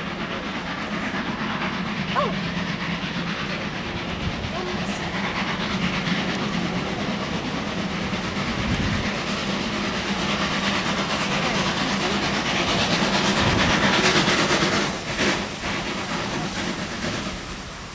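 Ex-Southern Railway USA tank steam locomotive approaching from a distance with its train: a steady rushing noise that grows louder, loudest a little before the end.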